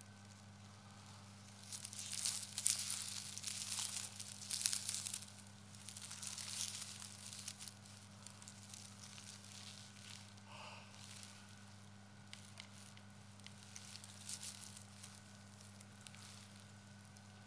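Crinkling and rustling of tape strips wrapped around a person's head, in irregular bursts starting about two seconds in and lasting some five seconds, then fainter scattered crackles. A steady low hum runs beneath.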